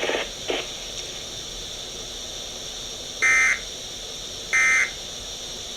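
Midland WR100 weather alert radio beeping: two short electronic beeps about a second and a half apart over steady radio hiss, its alert for the NOAA Weather Radio required weekly test.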